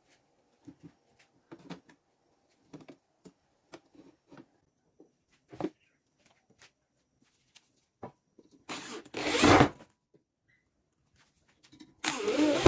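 Scattered light clicks and knocks of tools and parts being handled, then two short, loud scraping or rasping noises, one about nine seconds in and one near the end, each lasting about a second.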